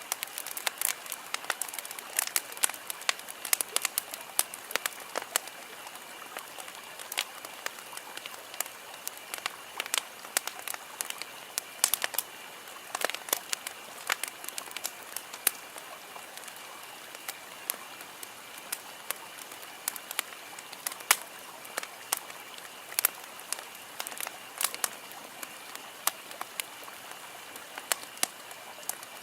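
Wood campfire crackling, with irregular sharp pops, several a second, over a soft steady hiss.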